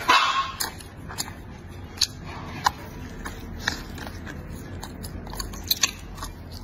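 A person biting and chewing a piece of braised pig's trotter, with wet smacks and sharp mouth clicks scattered throughout; a loud bite comes right at the start.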